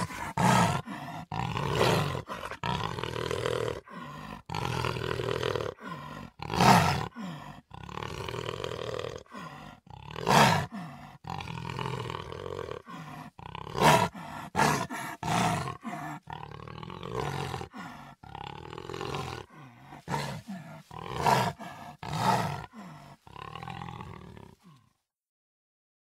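Creature sound effects voicing a Hyaenodon, an extinct carnivorous mammal: a run of loud, short roars and snarls with lower growling between them. The sound stops near the end.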